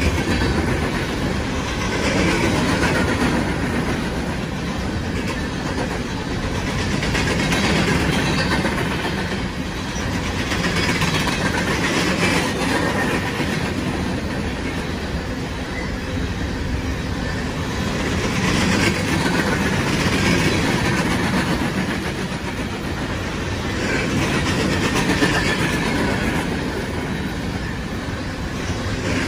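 Coal train's hopper cars rolling past, steel wheels clattering over the rails in a steady rumble that swells and eases every few seconds.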